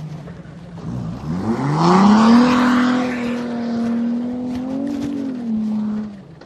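Off-road vehicle's engine revving up sharply, held at high revs for a few seconds, then easing off near the end. A hissing rush comes with the rise about two seconds in.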